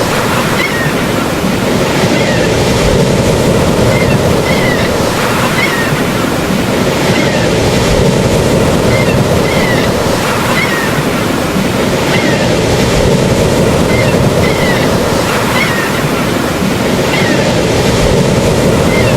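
Steady wash of ocean surf, with short high chirps recurring about once a second over it.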